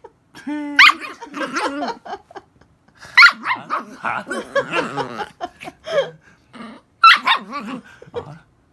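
Toy poodle barking and grumbling in protest at being teased: three sharp barks about one, three and seven seconds in, with wavering, complaining growls between them.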